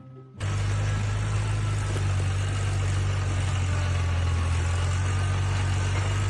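A steady, loud engine drone with a low hum, starting about half a second in and cutting off abruptly at the end.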